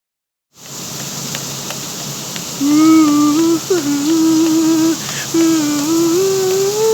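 A person humming a slow wordless tune in long held notes, starting about two and a half seconds in, over a steady hiss.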